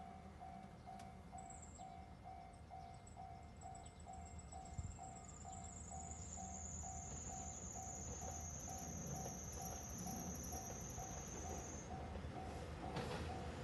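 A distant railway level-crossing warning bell dinging steadily, about two strokes a second, with a thin high whine rising and fading behind it. Near the end the noise of an approaching diesel train starts to grow.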